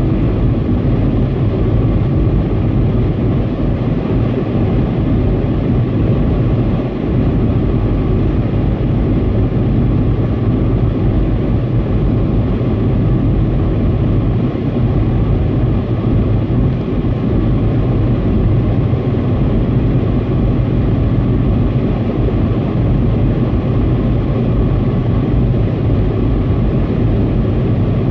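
Steady low rumble of tyre, wind and engine noise heard inside a car cabin while driving along an expressway.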